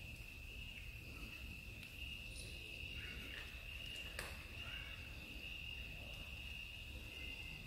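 A steady, high-pitched insect trill, typical of crickets, with two kittens faintly crunching dry kibble and a few light ticks, the clearest about four seconds in.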